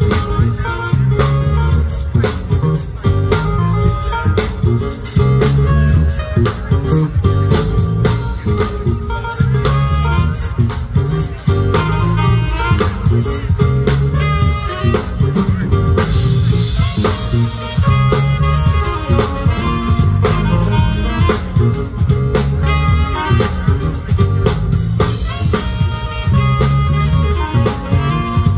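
Live jazz band playing: a tenor saxophone carrying the melody over a drum kit keeping a steady beat, with electric guitar and a strong low end.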